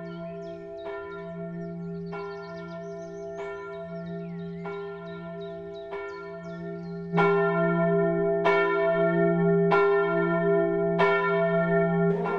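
A single church bell tolling at a steady pace, about one stroke every second and a quarter, each stroke ringing on into the next. It gets louder about seven seconds in.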